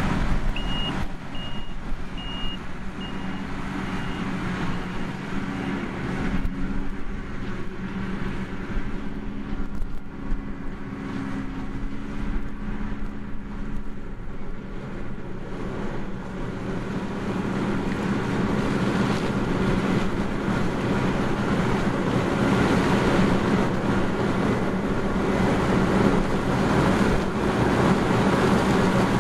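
Heavy farm machinery engines running steadily, growing louder over the second half. A high electronic warning beep sounds in the first few seconds, repeating and fading out.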